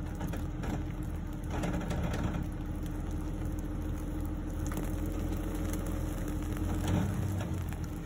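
Jeep Wrangler LJ's 4.0-litre inline-six running steadily at low revs under light throttle as the Jeep crawls up a rock ledge, with a few faint knocks.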